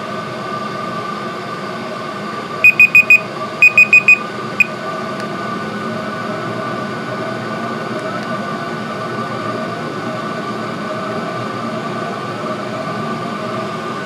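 Diesel heater running steadily at full power, its combustion fan and burner making a constant hum with a steady whine. About three seconds in, two quick runs of four high electronic beeps and then a single beep sound over it.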